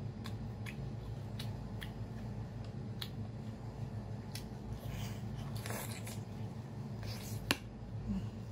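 Close-up mukbang eating sounds: sea snails sucked from their shells and chewed, with a string of short wet clicks and smacks, a few short sucking slurps past the middle, and one sharp click near the end that is the loudest moment.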